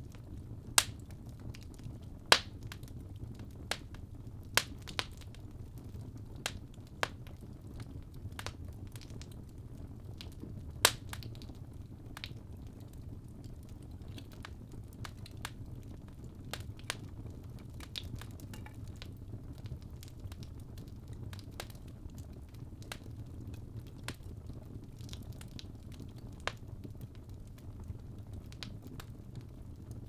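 Fire burning in a fireplace: a steady low rumble of flame with irregular sharp crackles and pops every second or so, a few much louder than the rest.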